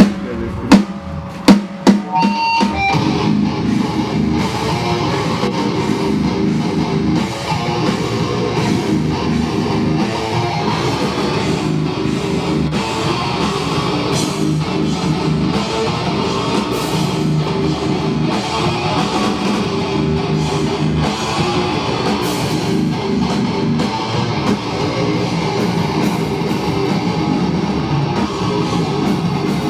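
Live heavy band playing distorted electric guitar and drum kit, with no bass player. A few loud drum hits come in the first two seconds, then the full band kicks in and plays on steadily.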